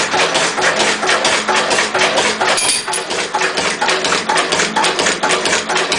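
Lister CS single-cylinder stationary diesel engine running slowly and evenly on waste vegetable oil, set to low compression, with a steady beat of about four strokes a second.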